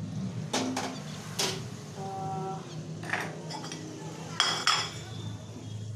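Steel kitchen utensils clinking against pots and pans: several sharp metallic knocks and scrapes, one of them, about four and a half seconds in, ringing on for a moment.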